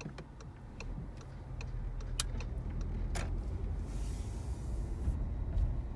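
Car cabin while driving: a steady low rumble of engine and road noise that grows louder about a second in, with a few light clicks and a brief hiss near the end.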